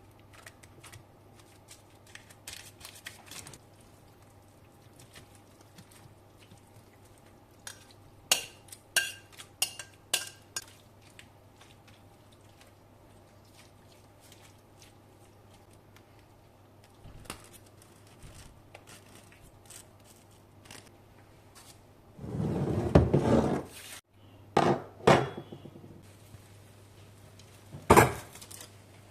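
Kitchen dishes and cutlery being handled: scattered clinks and knocks, a longer scraping sound past the middle, and one loud knock near the end, over a faint steady hum.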